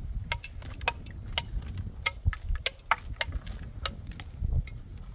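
Irregular sharp clicks and knocks from concrete-block masonry work, as blocks and tools are handled and set on the wall, over a low rumble.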